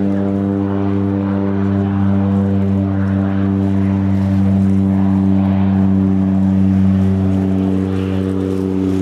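Floatplane's propeller engine droning steadily in flight, a constant even-pitched hum.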